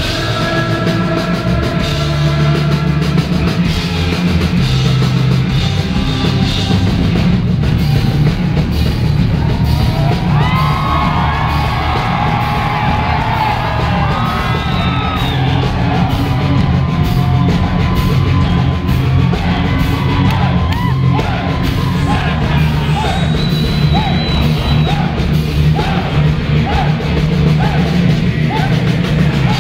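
Live heavy rock band playing loudly: electric guitars, bass and drums, with voices singing and shouting over the music. In the second half the voices turn to short cries repeated about once a second.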